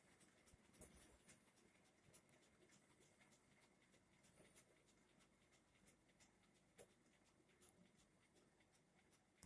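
Near silence, with faint, irregular small clicks.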